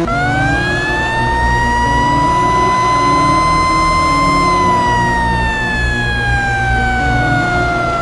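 Hockey goal siren winding up at the start, climbing to a peak about four seconds in, then slowly winding down, over music with a beat.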